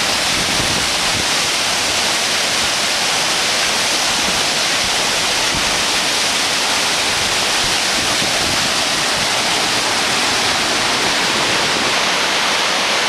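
Amedaki waterfall pouring, a loud, steady, even rush of falling water.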